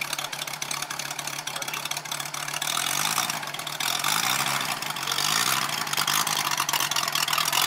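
Moki 250 cc radial engine of a giant-scale RC warbird running on the ground as it warms up, its propeller spinning. It gets louder about three seconds in and again about four seconds in.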